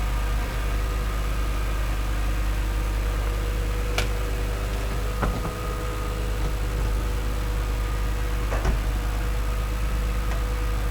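Steady mechanical hum from a 2002 BMW M3 E46 convertible, with sharp clicks about four, five and nine seconds in.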